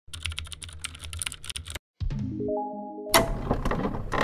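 Logo animation sound effects: a rapid run of clicks for nearly two seconds, a brief gap, then a quick rising run of notes, ending in a sudden loud hit about three seconds in with a noisy swell that carries on.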